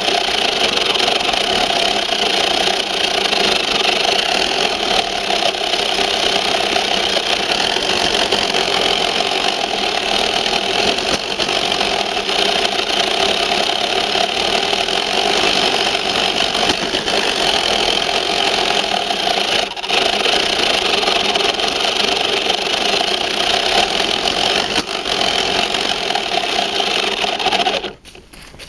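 Tamiya Ford F-350 radio-controlled 4x4 truck running, its electric motor and gearbox whining steadily, heard up close from a camera mounted on the truck's hood. The sound drops away suddenly near the end.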